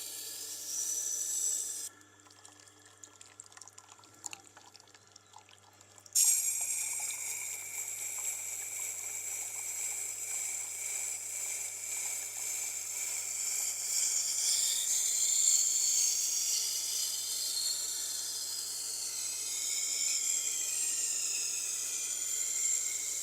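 A knife blade being ground on the wet grindstone of a Tormek sharpener: a hissing grind with rising and falling sweeps in pitch as the blade is drawn along the stone, over the machine's steady low motor hum. About two seconds in the blade comes off the stone for about four seconds, leaving only the hum, then the grinding starts again sharply.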